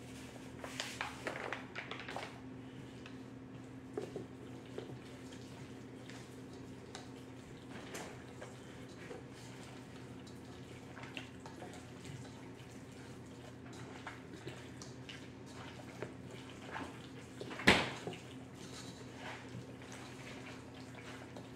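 Hands working seasoning into raw turkey pieces in a cooking pot: soft wet handling sounds and light knocks against the pot, with paper rustling from the seasoning packet in the first couple of seconds. One sharp knock sounds about eighteen seconds in, over a steady low hum.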